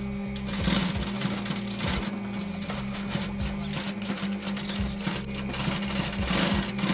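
Upholstery sewing machine stitching a motorcycle seat cover, with the stiff cover material rustling as it is handled and fed under the needle, loudest about a second in and near the end.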